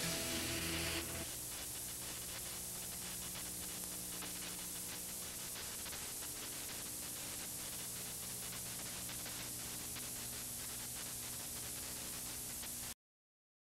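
The last of the closing music fades out about a second in, leaving a steady hiss with a low hum underneath, typical of videotape playback noise; it cuts off suddenly near the end.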